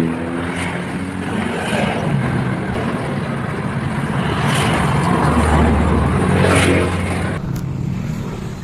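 Road traffic: a motor vehicle's engine passing close by, growing louder to a peak about six seconds in, then dropping away suddenly.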